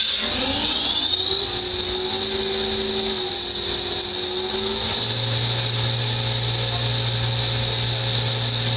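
Lathe machining the bearing seat and response-pad area of a metal yo-yo. It gives a steady high whine that rises in pitch over the first couple of seconds and then holds, and a low hum comes in about halfway through.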